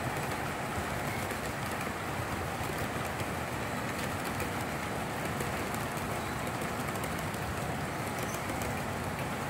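S gauge model freight cars rolling steadily along metal track, a continuous even rumble of many small wheels.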